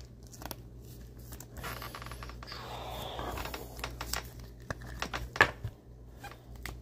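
A trading card being slid into a rigid plastic top loader by hand: light plastic scraping and rustling with scattered clicks, the sharpest about five and a half seconds in.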